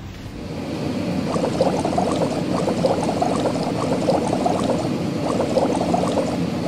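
Cartoon sound effect of bubbling, popping soap foam, a dense run of quick little pops that builds up about half a second in, as suds are spread over a car in a car wash.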